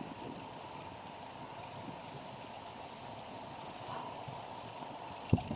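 Bicycle rolling along the road: a steady hiss of tyres and drivetrain, with a sharp knock near the end.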